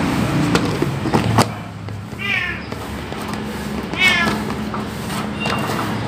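Stray tomcat meowing twice while begging for food, about two seconds in and again about four seconds in. A few sharp knocks come in the first second and a half.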